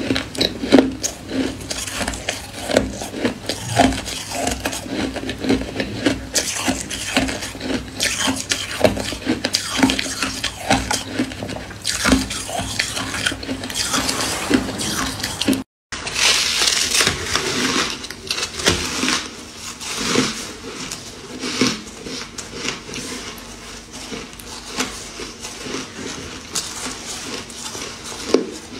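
Crushed ice being bitten and chewed: dense, irregular crunching and crackling, with clinks and scrapes of a metal spoon in a steel pot. The sound cuts out for an instant about halfway, then the crunching resumes.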